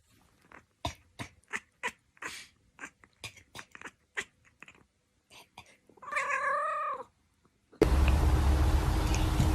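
A cat eating, with rapid wet chewing and smacking clicks for about five seconds. Then comes one long, wavering meow about six seconds in. Near the end a loud, steady rushing noise with a low hum cuts in.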